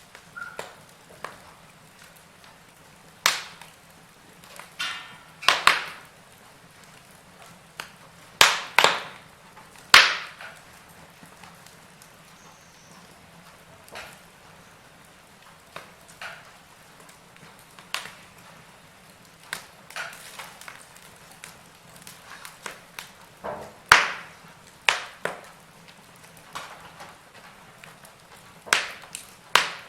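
Wood fire crackling: irregular sharp pops and cracks from burning logs, some single and some in quick clusters, over a low steady hiss.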